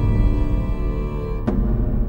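Dark, dramatic soundtrack music: sustained tones over a deep low drone, with one sharp hit about three-quarters of the way through that rings on.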